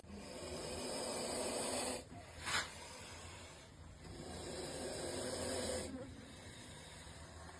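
Snake hissing: two long hisses of about two seconds each, with a short, louder burst of hiss between them.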